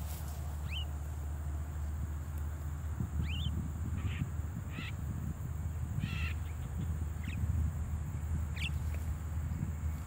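Javan mynas giving short, rising calls, about eight of them spaced irregularly through the stretch, over a steady low rumble.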